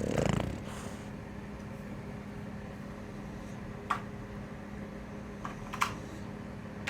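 Steady low electrical hum over room tone, with a few faint clicks in the second half; a burst of music cuts off just at the start.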